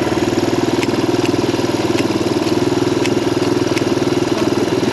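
Kawasaki KLX dirt bike's single-cylinder four-stroke engine idling steadily after a cold start, with faint sharp ticks about every half second.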